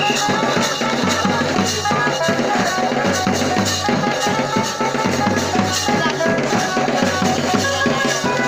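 Live folk music led by a fast, steady drumbeat, with a sustained melody line above it.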